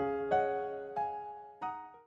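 Background music: slow, soft keyboard notes, a new note or chord struck about every half second to second and left to ring, the music fading down near the end.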